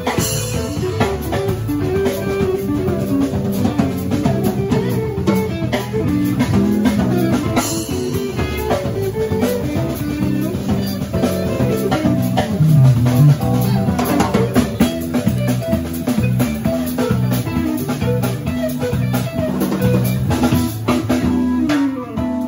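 Live band playing: an electric guitar plays melodic lead lines over a drum kit and bass guitar.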